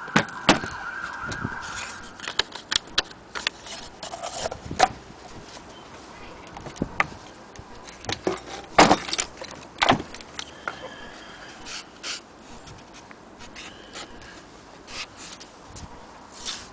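Irregular clicks and knocks of an antique Singer sewing machine's wooden case, accessory drawer and loose parts being handled. A wavering high tone, like a distant siren, fades out in the first two seconds.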